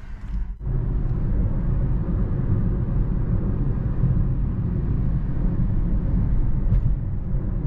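Steady low rumble of road and tyre noise inside the cabin of a moving Toyota Prius, setting in about half a second in.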